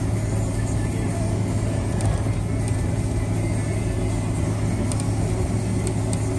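A vehicle driving, heard from inside the cabin: a steady low engine and road drone, with a few faint ticks on top.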